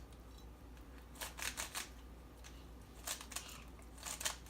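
Yuxin Fire speedcube being turned, its plastic layers clicking in three short bursts of quick clicks. The cube is fresh out of the box and feels rough and stiff to turn.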